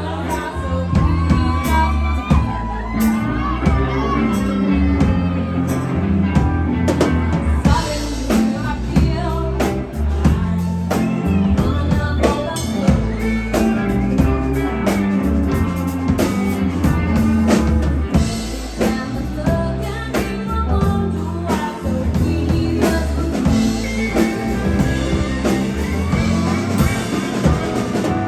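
Live rock band performing a song: a drum kit with cymbals, bass, guitar and a singing voice. The cymbals grow louder about eight seconds in and again in the last third.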